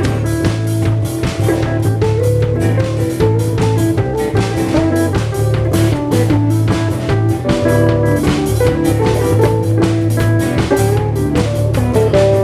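Live band jamming on guitar and drum kit, with a steady beat and sustained low notes underneath.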